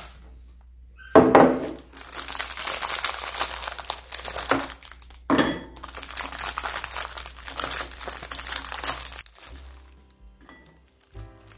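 Thin clear plastic biscuit wrapping crinkling and rustling loudly as hands tear it open and handle it, for about eight seconds, with sharp crackles near the start and again midway. Soft music comes in near the end.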